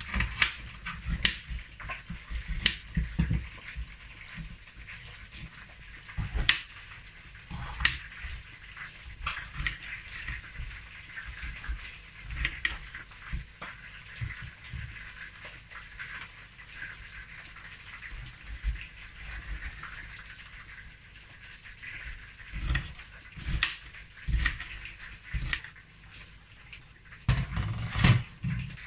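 Kitchen knife slicing bell peppers on a wooden cutting board: irregular knocks of the blade through the pepper onto the board, with a cluster of louder knocks near the end.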